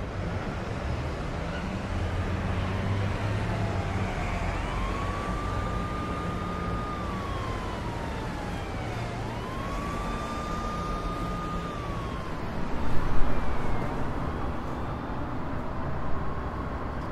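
Emergency vehicle siren wailing slowly up and down over a steady city traffic rumble, holding at its high pitch for a couple of seconds on each cycle. There is a brief louder swell of noise about thirteen seconds in.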